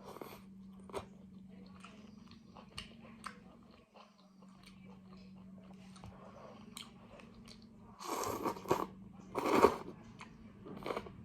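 A person chewing and biting into a bowl of noodle soup with vegetables, with scattered small clicks of eating and two louder stretches of eating noise about eight and nine and a half seconds in. A steady low hum runs underneath.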